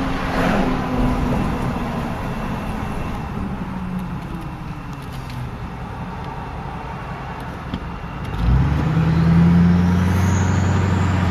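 Vehicle engine and road noise heard from inside the cab. The engine runs quieter while the vehicle eases through a stop-sign junction, then about three-quarters of the way through it picks up, louder and rising in pitch, as the vehicle accelerates away.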